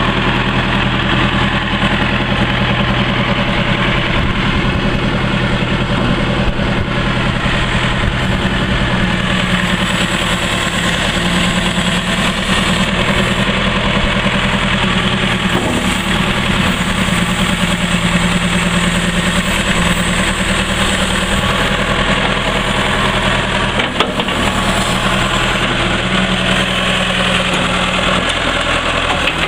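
Caterpillar 416C backhoe loader's diesel engine running steadily at low revs while the backhoe arm is worked, its note dropping slightly a few times as the hydraulics take load.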